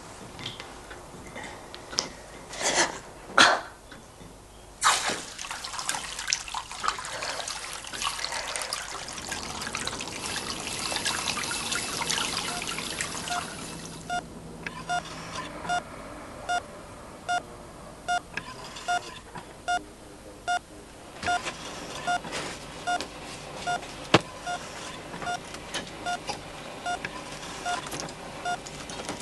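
Liquid dripping and trickling with a few sharp knocks. About halfway through, a hospital patient monitor starts beeping steadily, about one and a half beeps a second.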